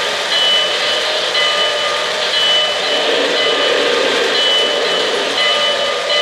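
Lionel O-gauge NYC Commodore Vanderbilt J1e Hudson's Rail-Sounds steam effects while the locomotive stands: a steady hiss, with short high tones repeating about once a second.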